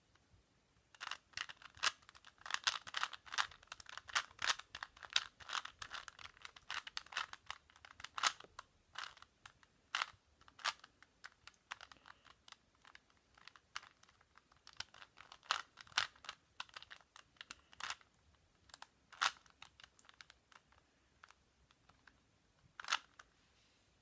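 A plastic Rubik's cube turned quickly by hand, its layers clicking and clacking in rapid runs. The runs are densest in the first several seconds, then come in sparser bursts, ending with a single click near the end.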